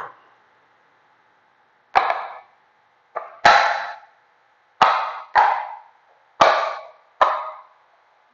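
Hollow cylindrical stacking pieces being set down one after another on a table and onto each other, making about seven sharp clacks, each ringing briefly.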